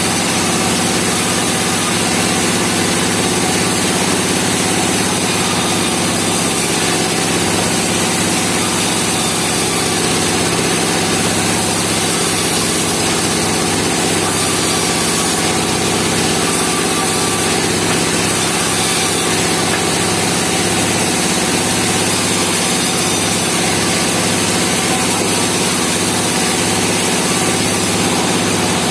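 Band sawmill running steadily, its engine holding a constant speed with the blade sawing pine timber.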